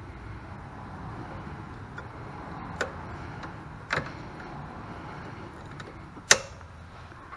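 Sharp metal clicks of snap-ring pliers and a steel snap ring being worked onto the splined end of a golf cart rear axle, three clicks spaced a second or two apart, the loudest near the end as the ring clips into its groove to hold the axle bearing in place. A steady low hum sits under them.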